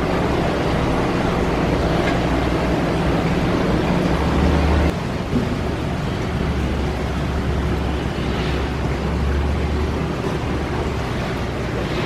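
Steady rushing and humming of saltwater aquarium pumps and circulating water, with a low rumble underneath; the sound changes abruptly about five seconds in.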